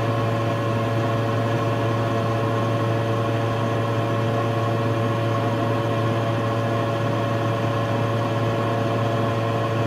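Steady hum of a ventilation fan: a constant low drone with a couple of steady higher tones above it, never changing.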